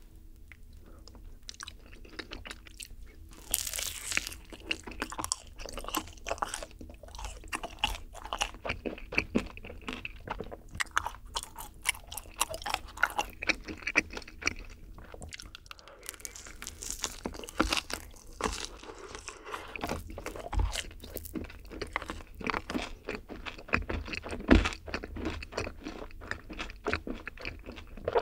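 Close-miked biting and chewing of yakgwa, a honey-soaked fried Korean cookie, topped with vanilla ice cream. A first bite comes about three and a half seconds in, followed by continuous chewing made of many quick small clicks.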